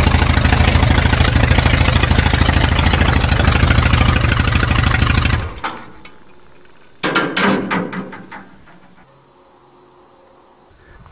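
A small vehicle engine running steadily at idle, then shut off about five and a half seconds in; a few clicks and knocks follow.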